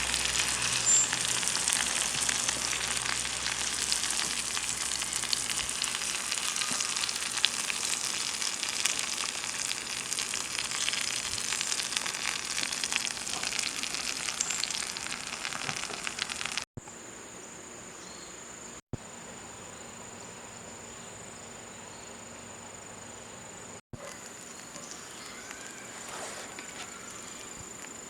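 Sizzling and crackling over the small cook fire: a dense, steady crackle of many tiny pops. About two-thirds of the way in it cuts off abruptly, leaving a much quieter background with a faint, steady high-pitched whine.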